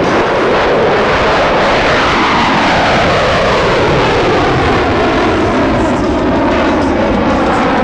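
F-35B Lightning II's single Pratt & Whitney F135 turbofan running at full takeoff power as the jet lifts off and climbs away. The loud roar falls in pitch from about a second and a half in as the jet passes and pulls away.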